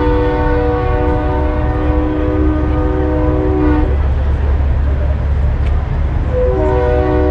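A multi-chime train-style air horn on a show semi truck blowing a held chord of several notes for about four seconds. It stops, then sounds again about a second before the end, over a steady low rumble of truck engines.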